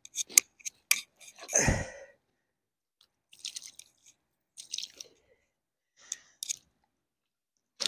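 A carp flapping and slapping on a wet unhooking mat while being held down: a few sharp wet clicks, one louder slap about a second and a half in, then faint rustling and scuffing.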